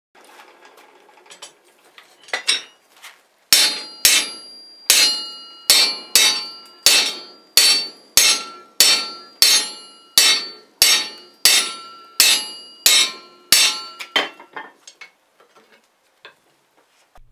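Hammer blows on steel clamshell collar tooling, forge-welding a collar at welding heat onto a bar. A few soft knocks come first, then a steady run of about twenty sharp, ringing strikes, a little under two a second, ending in a few lighter taps.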